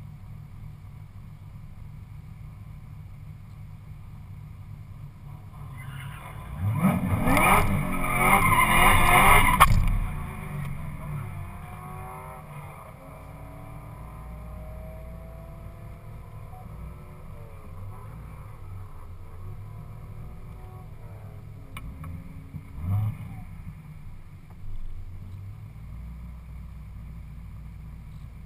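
Cadillac CTS-V coupe's supercharged V8, with Stainless Works headers and Borla exhaust, heard from inside the cabin: idling with a low rumble, then about six seconds in the revs climb and the rear tyres spin with a loud hiss and squeal for about three seconds in a pre-run burnout, before it settles back to idle with a couple of short throttle blips.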